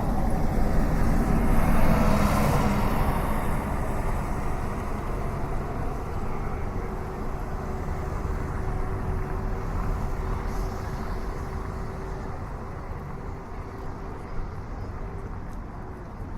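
City street traffic: a motor vehicle passes close by, loudest about two seconds in, and then the traffic noise slowly dies away.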